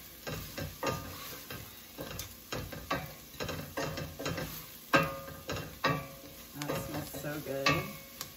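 A wooden spoon stirring and scraping diced onions, garlic, ginger and spices around a stainless steel pot, in irregular strokes with a sharper knock about five seconds in, over a light sizzle of the vegetables frying in coconut oil on medium heat.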